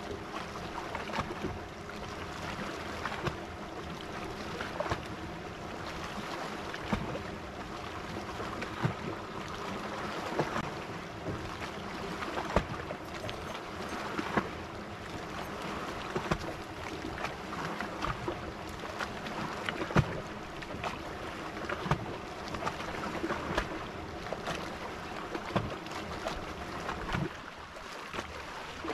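A bass boat's bow-mounted electric trolling motor runs with a steady hum and cuts off near the end. Frequent small knocks and slaps of water against the hull come through over it.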